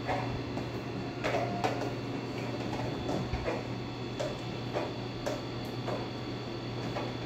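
Irregular light clicks and knocks of plastic parts as a dartboard backboard is handled and fitted onto a metal stand pole, about ten over a few seconds, over a steady low hum.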